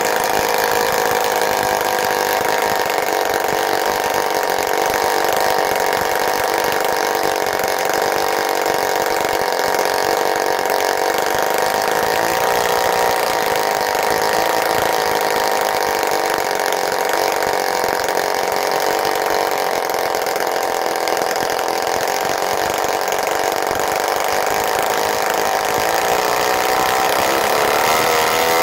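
Fleetwind-60 vintage spark-ignition .60 model airplane engine running steadily on a test stand, driving its propeller. Its pitch wavers slightly and shifts up and down near the end.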